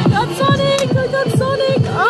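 Electronic music with a fast, steady beat of about four strokes a second under a stepping synth melody.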